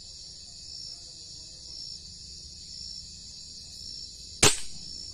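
A single sharp gunshot about four and a half seconds in, over night insects chirping steadily about once a second.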